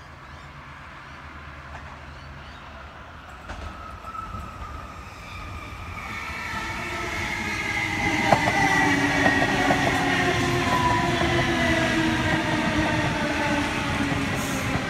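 Sydney Trains Waratah double-deck electric train pulling into the platform, growing louder as it nears. Its motor whine falls in pitch as it slows to stop, with a few sharp wheel clacks as the front passes.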